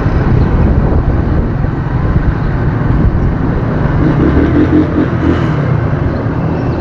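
Motorcycle engine running steadily at low speed while riding, loud and close to the helmet-mounted microphone.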